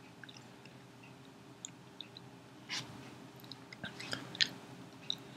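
Faint chewing of a fried cheese crisp: soft, scattered mouth clicks, with a few slightly louder ones near the three- and four-and-a-half-second marks.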